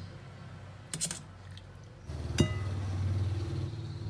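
A couple of faint clicks, then about two and a half seconds in a single sharp clink of something striking a ceramic plate, ringing briefly. A low steady hum starts just before the clink.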